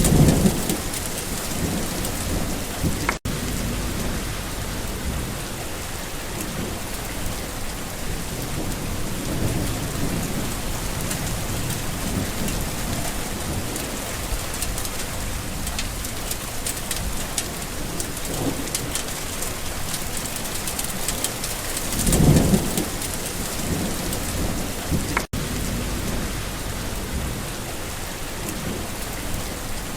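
Steady rain falling, with low thunder rumbling right at the start and again about three quarters of the way through. The sound drops out for an instant twice.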